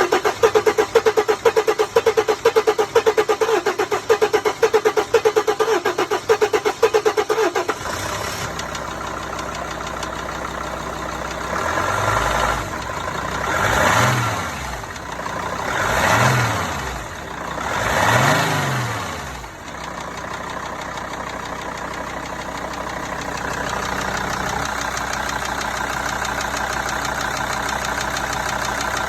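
Mercedes ML 270 CDI's five-cylinder common-rail diesel running just after starting, first with a loud rapid pulsing clatter for about eight seconds, then settling, revved briefly three times around the middle, and then idling steadily. This is the engine noise that the owner is questioning.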